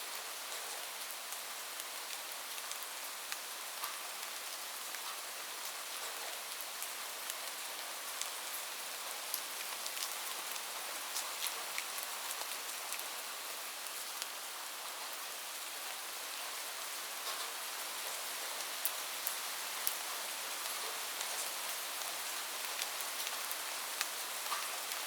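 Steady rain falling, a constant hiss with many sharp, separate drop ticks scattered through it.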